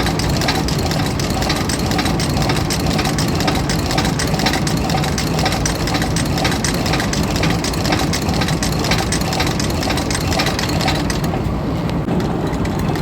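Antique Champion upright leather sewing machine running fast, its stitching mechanism making a rapid, steady clatter over a steady engine-like drone. The clatter eases off near the end.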